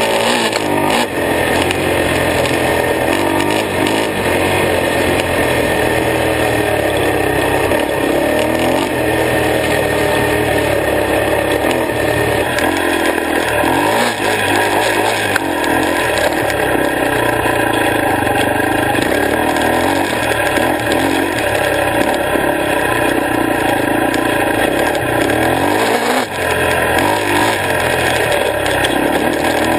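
Honda XR250R dirt bike's single-cylinder four-stroke engine running under load on a trail ride, its revs rising and falling with the throttle.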